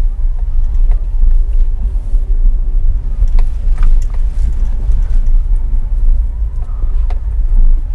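Car driving on a city street, heard from inside the cabin as a steady low road and engine rumble.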